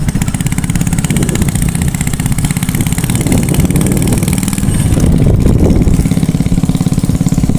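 Motorcycle engine running steadily under way, a fast, even beat of firing pulses.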